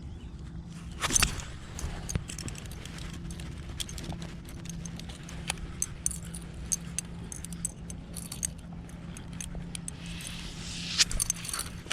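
Scattered small clicks and light rattles, a cluster about a second in and another near the end, over a steady low hum.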